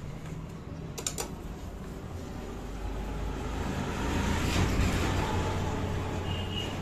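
Hand tools and metal engine parts handled during motorcycle engine reassembly: two sharp metallic clicks about a second in, over a steady background rumble that swells around the middle.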